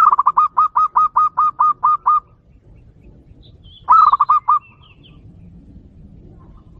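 Zebra dove (perkutut) cooing: a quick run of about a dozen short, clipped notes lasting about two seconds. About four seconds in comes a shorter run of about five notes.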